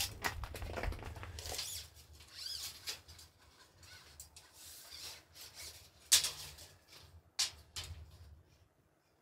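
Handling noises of a tape measure being pulled out and worked: scraping and rattling with a few sharp clicks or knocks, the loudest about six seconds in and another about a second later.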